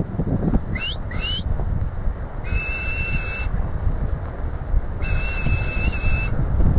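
Whistled commands to a young herding dog working sheep: two quick rising whistles about a second in, then two long steady whistles, each held about a second. Wind rumbles on the microphone throughout.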